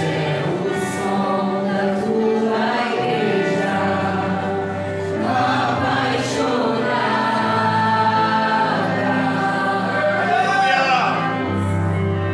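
Christian worship music: several voices singing over sustained instrumental chords with a steady bass.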